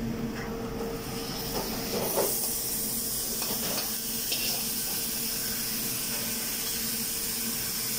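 Sizzling chicken and vegetables hissing on a hot sizzling plate as its metal cover comes off, the hiss growing much stronger about two seconds in and then holding steady.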